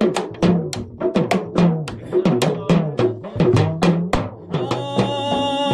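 Music with a fast, busy drum beat; about five seconds in, a held chord of steady tones enters over it.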